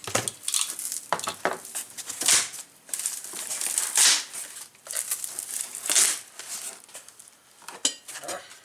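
Packing tape being torn off and wrapping crinkled and pulled open while a taped-up box of parts is unpacked, in irregular scratchy bursts with the loudest rips about two, four and six seconds in.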